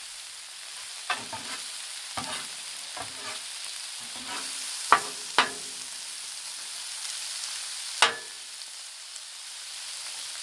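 Red beans and smoked sausage sizzling with a steady hiss on a Blackstone steel griddle, while a metal spatula scrapes through them. About six sharp clanks of the spatula on the steel ring briefly; the loudest come about five seconds in and near eight seconds.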